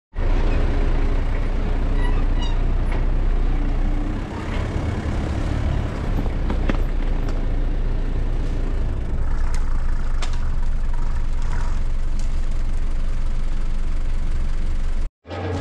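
Four-wheel-drive ute driving slowly along a bush track: a steady low rumble of engine and tyres rolling over leaf litter, with a few sharp cracks of sticks under the wheels. The sound cuts off abruptly near the end.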